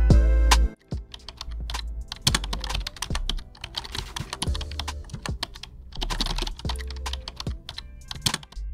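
Rapid, irregular clicking of typing on a computer keyboard, over background music with a low bass.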